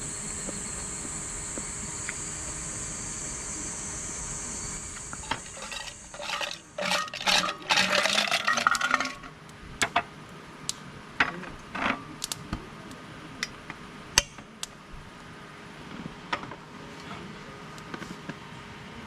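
Dishes and utensils clinking and clattering: a dense burst of clatter about six seconds in, then scattered single clinks. A steady high insect drone fills the first few seconds.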